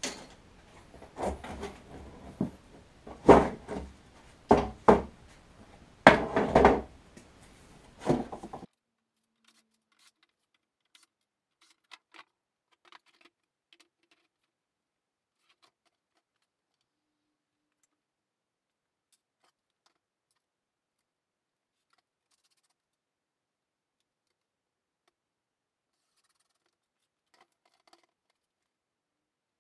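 Wooden knocks and thuds, about half a dozen at uneven intervals over roughly eight seconds, as a pine frame and board are worked on a workbench. After that the sound drops away to near silence with a few faint clicks.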